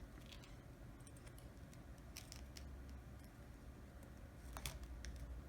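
Faint, scattered small clicks and light scraping of plastic and metal phone parts as the motherboard of a disassembled phone is worked loose by hand. A few of the clicks come about halfway through and a few more near the end.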